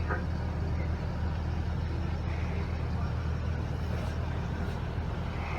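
Heavy vehicle engine idling: a steady low rumble with no change in pitch.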